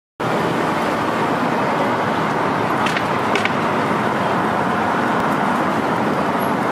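Steady city street traffic noise, an even rush of engines and tyres, with two brief sharp ticks about three seconds in.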